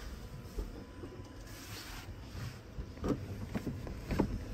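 A caravan entry door's handle and lock being worked, giving a few sharp clicks near the end over a faint rustle and low background rumble.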